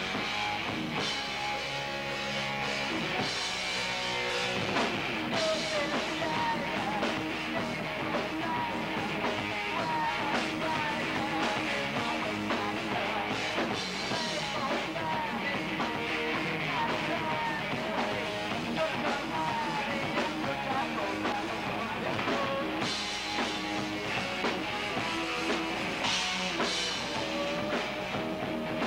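Live rock band playing: drums, bass and electric guitar, with a singer's voice over the top.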